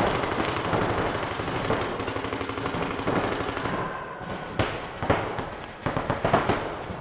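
Paintball markers firing in rapid strings, many shots a second, echoing in a large indoor hall; the fire thins to scattered single shots in the last few seconds.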